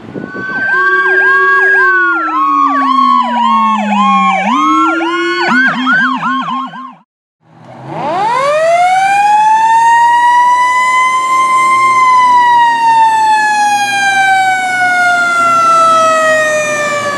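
Fire engine sirens: an electronic siren in a fast yelp together with a lower siren tone that slides down and then winds back up, cutting off about seven seconds in. After a brief silence, a siren winds up to a high pitch and then slowly falls.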